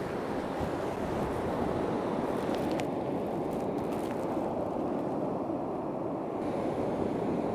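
Steady wind on the microphone over surf breaking on the shore, with a few faint clicks in the middle.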